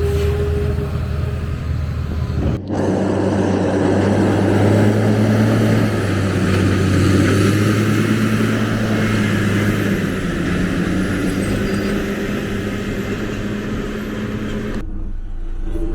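Engines of passing vehicles or construction machinery running with a steady low hum. It changes abruptly about two and a half seconds in, and most of the higher sound drops away suddenly near the end.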